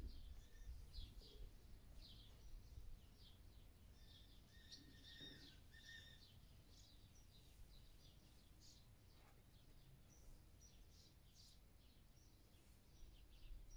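Faint bird chirps: many short, high notes over a low background rumble.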